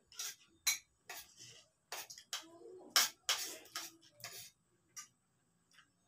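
Spoons clinking and scraping against plates as people eat, about a dozen short, irregular clicks and scrapes.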